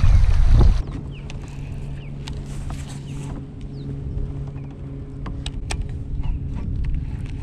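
Wind rumbling on the microphone for about the first second, cutting off suddenly. After that comes a quieter, steady low hum with scattered sharp clicks and a few faint short chirps.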